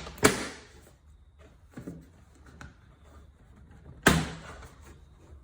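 Plastic retaining clips of a Toyota 4Runner rear door trim panel popping loose as the panel is pulled off the door: two loud, sharp snaps, one just after the start and another about four seconds in, with a few faint clicks between.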